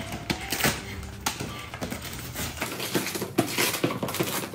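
Christmas wrapping paper being torn and ripped off a gift box in a hurry, a rapid, irregular run of crackling, crinkling and tearing.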